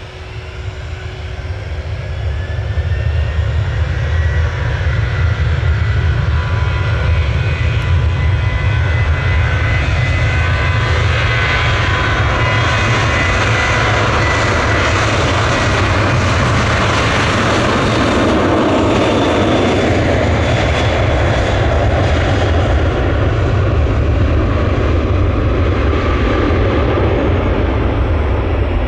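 Jet airliner's engines running loud close by: a whine over a broad roar that swells over the first few seconds and then holds steady.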